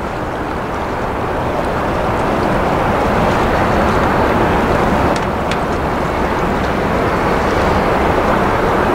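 Airbus A350-941's Rolls-Royce Trent XWB jet engines at takeoff thrust during the takeoff roll: a steady rushing jet noise that slowly grows louder.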